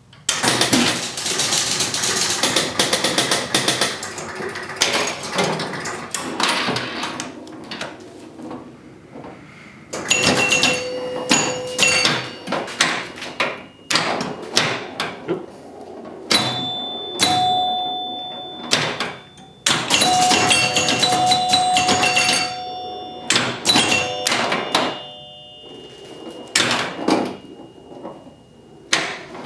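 1976 Gottlieb Surf Champ electromechanical pinball machine in play: a dense rattle of mechanical clacks in the first few seconds, then bursts of sharp knocks from flippers, bumpers and relays, with chime bells ringing out at several pitches and slowly dying away as it scores.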